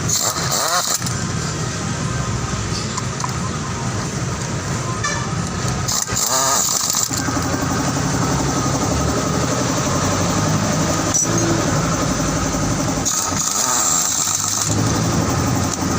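Yamaha NMAX scooter's single-cylinder engine running steadily, with a few short hissing bursts over it. This is a test run after fitting new roller weights and a new CVT V-belt.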